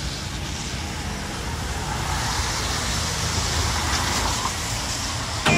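Steady background noise with a low rumble, building slightly over the first two seconds. Music comes in at the very end.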